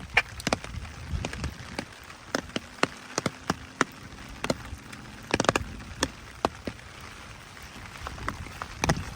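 Rain falling, with irregular sharp ticks of drops striking close to the microphone over a steady hiss.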